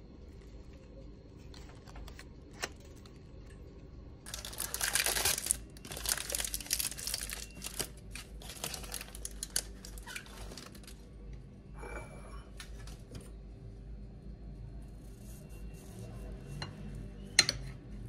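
Rustling and crinkling in bursts through the middle, with scattered light clicks and clinks and one sharp click near the end.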